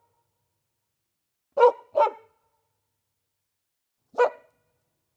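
Dog barking: a quick double bark about one and a half seconds in, then a single bark near the end, with silence between.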